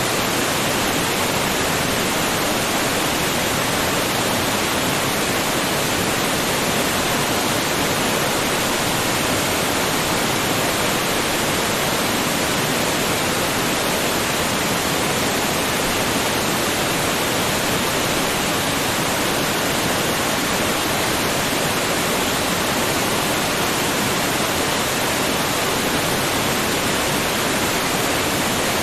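Waterfall: a steady, unbroken rush of falling water, even from low to very high pitches with no changes.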